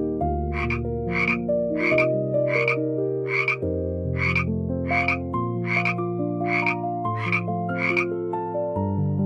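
An animal calling in a steady series of about a dozen short calls, roughly one every two-thirds of a second, over soft background music.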